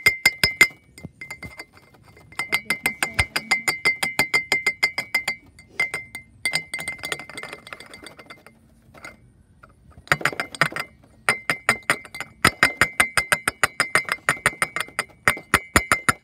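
Rapid clinking of a funnel knocked against the neck of a glass flask, about five taps a second in runs of a few seconds with short pauses, the glass ringing with a steady high tone. The tapping shakes baking soda down through the funnel.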